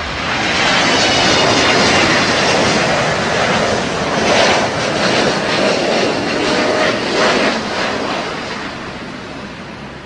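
Jet engines of a Boeing 777 airliner passing low on its landing, a loud rushing whine that swells soon after the start, peaks about halfway through with gusty surges, then fades away.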